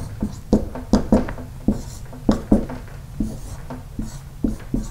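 Dry-erase marker writing on a whiteboard: an irregular run of short strokes and taps, several a second, as an equation is written out.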